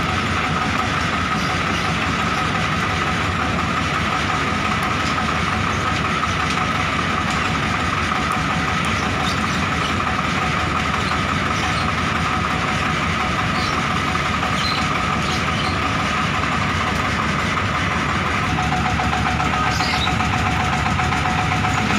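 Diesel truck engine idling steadily, with a high, even whine over the running; a second, lower whine joins near the end.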